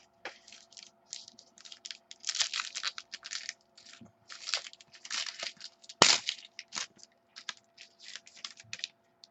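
Sports trading cards and their packaging being handled: a run of irregular short scrapes and rustles, with a sharp click about six seconds in.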